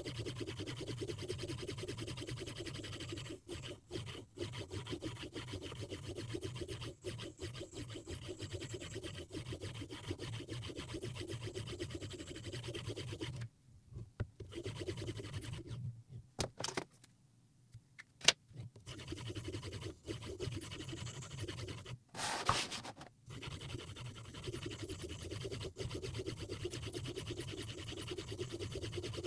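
Knife edge being stroked back and forth on a Hapstone 4000 fine semi-natural quartz stone in a guided-rod sharpener, a rapid steady scraping. About halfway it pauses for a few seconds with some sharp clicks, then the stroking resumes.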